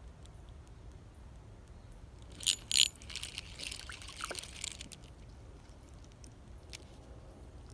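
Two sharp clicks about two and a half seconds in, then about two seconds of splashing and crackling as a small sunfish is lifted out of the water on a light rod and handled.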